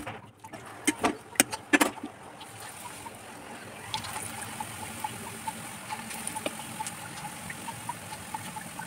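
Lauki koftas frying in oil in a pan: a steady sizzle with small scattered pops. A few sharp knocks sound in the first two seconds.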